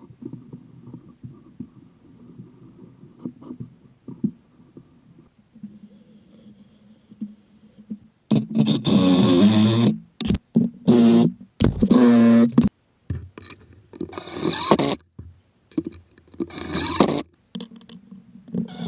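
A rag rubbing stain faintly over an oak board. From about eight seconds in comes a run of loud, harsh bursts of a second or so each, with short pauses between, from work on the wood.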